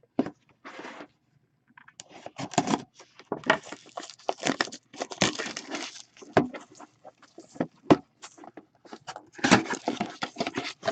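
Plastic shrink wrap crinkling and tearing, with clicks and rustles of packaging handled in irregular bursts, as a sealed box of hockey cards is unwrapped and opened.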